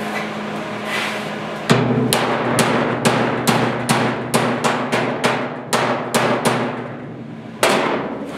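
Hand hammer striking the clamped sheet-steel edge of a pickup's inner bed side, about two sharp ringing blows a second starting nearly two seconds in, with a short pause near the end: the steel is being knocked into shape.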